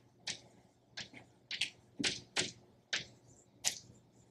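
Chalk writing on a blackboard: about eight short, unevenly spaced taps and scratchy strokes as letters are written.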